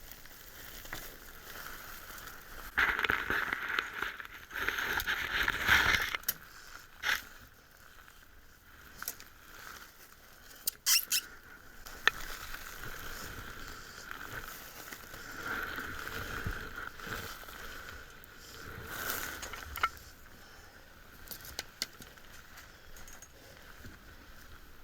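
Scuffling, scraping and sharp knocks of a person climbing down out of a ceiling space, with a louder stretch of scuffling a few seconds in and several sharp knocks near the middle.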